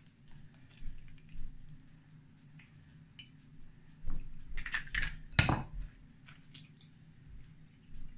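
Eggs being cracked and separated over bowls: sharp taps of eggshell against a bowl's rim, light clicks of shell, and clinks of bowls. The loudest knock comes about five seconds in.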